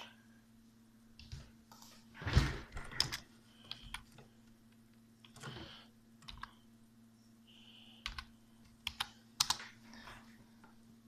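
Irregular taps and clicks with a few brief rustles, like things being handled or keys pressed, over a steady low hum.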